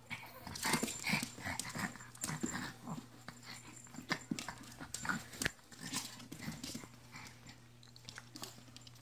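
Small Chihuahua play-fighting with a bare foot: short vocal bursts from the dog mixed with quick clicks and scuffles, busiest in the first few seconds and thinning out after.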